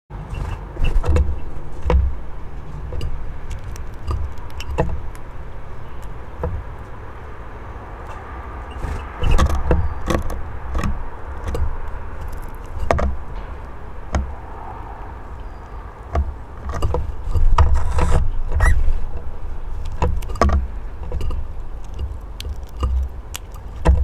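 Irregular sharp taps and knocks of birds moving and pecking on a wooden bird table and birdhouse, over a low rumble that swells and falls unevenly.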